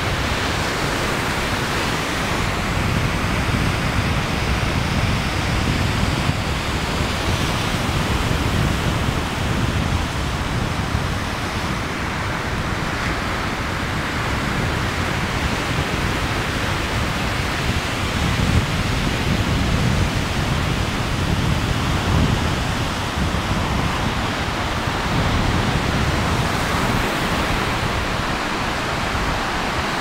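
Ocean surf breaking on a sandy beach: a steady, even rush of noise with a low, fluctuating rumble underneath.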